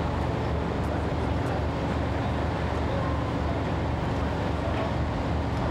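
Heavy diesel engine idling steadily, a low, evenly pulsing drone with a steady hum.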